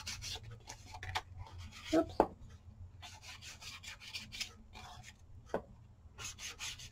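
A round ink blending tool rubbed along the edge of a paper strip to distress it with ink: dry, scratchy rubbing in a few short spells, with quick strokes near the end.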